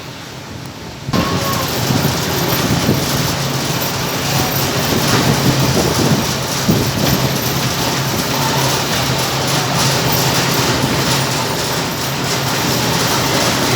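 Steady running noise of a moving vehicle, with a low hum beneath it, coming in abruptly about a second in.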